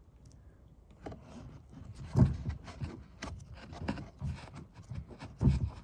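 Irregular knocking and rubbing from hands working the loosened taillight assembly, with two louder thumps, about two seconds in and near the end.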